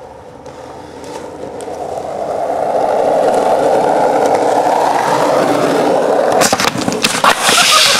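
Skateboard wheels rolling on pavement, growing louder over the first few seconds as the board comes closer and then holding steady. Near the end comes a quick run of sharp knocks and clatter.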